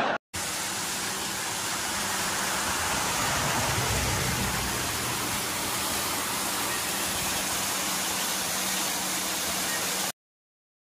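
Small waterfall cascading down a rock face: a steady, even rushing of water that cuts off suddenly near the end.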